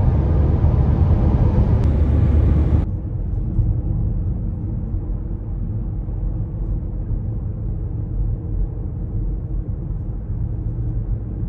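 Road and engine rumble heard inside a moving car's cabin. It is steady and low, and about three seconds in it drops suddenly to a quieter, duller rumble.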